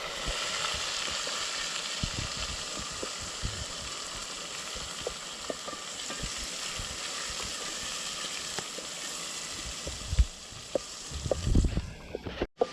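Onions frying in hot oil in a cooking pot, sizzling steadily, with scattered small ticks and a few louder knocks from stirring near the end.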